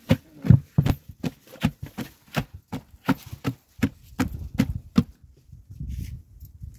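A bundled-twig whisk beaten rhythmically through frothy liquid in a large aluminium pot, sloshing and slapping about three strokes a second. The beating stops about five seconds in.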